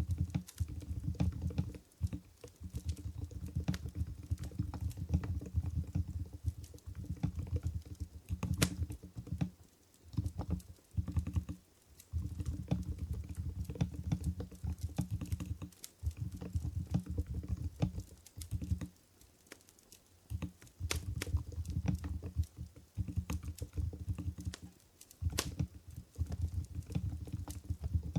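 Typing on an Mstone Groove GV10 keyboard with low-noise Coral 45 g switches: rapid, soft key presses in runs of several seconds with short pauses between them, including a longer pause a little after halfway.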